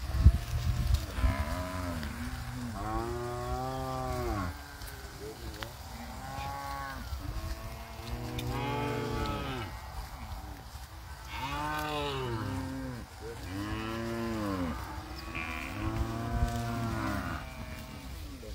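A herd of cattle mooing, several animals calling one after another and overlapping, a long moo every second or two, each rising and then falling in pitch.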